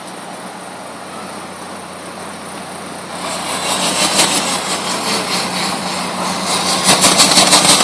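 Small pickup truck's engine running, getting louder about three seconds in as the truck moves off. From about seven seconds in there is a rapid, even pulsing, about five a second.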